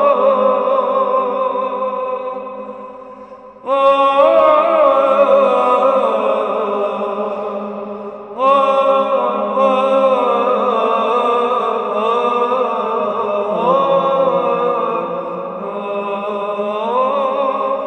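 Byzantine chant in Echos Legetos: a chanter sings a slow, ornamented melody over a steady held ison drone. New phrases begin about three and a half seconds and eight and a half seconds in, each after a short dip in loudness.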